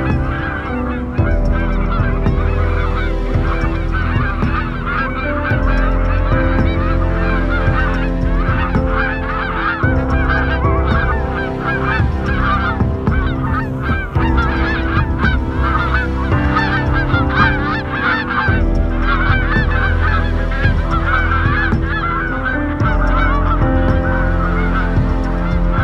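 A flock of white domestic geese honking and cackling continuously, many rapid overlapping calls. Beneath them run steady low tones that shift every few seconds.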